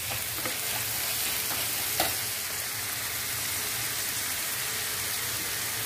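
Pasta and vegetables sizzling in a frying pan on a gas flame while a metal spatula stirs them, with a steady hiss. The spatula knocks once on the pan about two seconds in.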